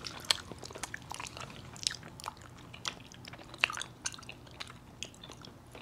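Faint close-up chewing, with many small, irregular wet mouth clicks.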